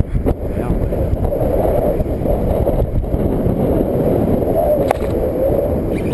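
Wind buffeting the camera microphone: a loud, steady low rush, with a faint click about five seconds in.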